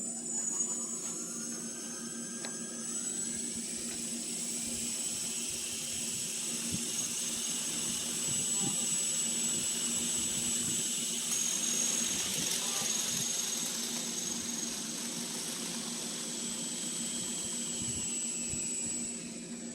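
Electric motors of a 1:4 scale coaxial RC helicopter spinning up its counter-rotating rotors with a rising whine. They hold a steady high whine over a low rotor hum, then wind down shortly before the end.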